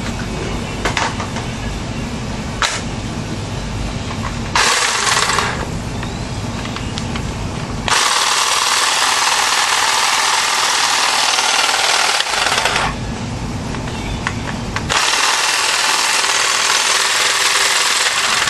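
Ryobi hedge trimmer's reciprocating blades buzzing in three runs: a short burst about five seconds in, a longer run of about five seconds, and another of about three and a half seconds near the end. A steady low hum lies underneath, with a few sharp clicks in the first seconds.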